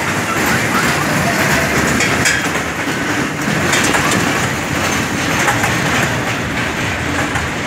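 Worm-shaped kiddie roller coaster train running along its steel track close overhead: a steady rattle of wheels on rails.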